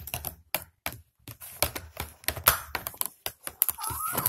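Rapid, irregular clicks and crackles of a clear plastic blister pack being handled and cut open with scissors.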